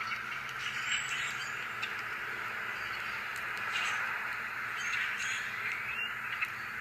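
A flock of birds calling all at once in a continuous chatter.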